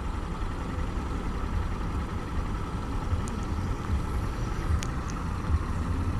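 Honda motorcycle's engine idling at a standstill: a steady low rumble.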